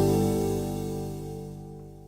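The last chord of a song, led by guitar, ringing on and fading away.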